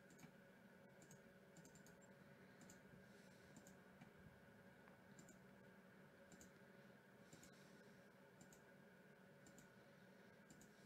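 A scattering of faint computer mouse clicks over near-silent room tone.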